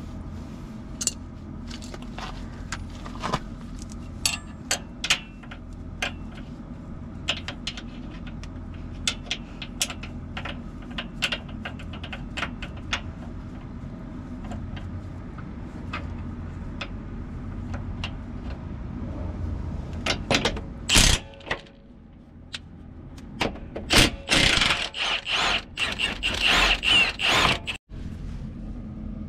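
Hand wrench working the 21 mm frame-side upper track bar bolt loose on a Jeep JL Wrangler's front suspension: a long string of irregular metallic clicks and scrapes. Near the end comes a louder, denser run of rapid rattling.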